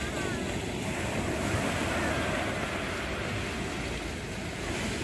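Sea surf: small waves breaking and washing up a sandy beach in a steady rush.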